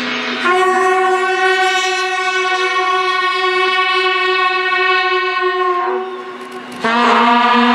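A loud horn-like note from the light show's soundtrack over the loudspeakers, held steady for about five seconds; after a brief dip near the end, a second, lower held note comes in.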